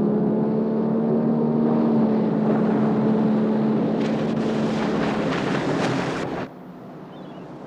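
Motorboat engine running at a steady speed, with the rushing splash of water spray from a water skier's wake growing loud about four seconds in. Everything cuts off suddenly about six seconds in, leaving a much quieter background.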